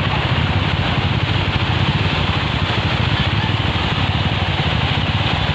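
Motorcycle engine idling steadily with a fast, even pulse, over the steady rush of floodwater flowing across a paved road.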